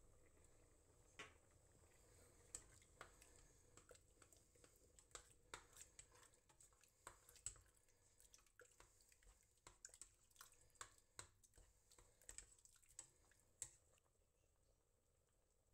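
Faint irregular clicks and scrapes of a spoon stirring a thick tomato sauce in a stainless steel pot, stopping near the end.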